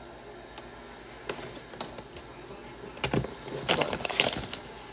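Packaging and paper being handled on a table: scattered crinkles and clicks, busiest from about three to four and a half seconds in.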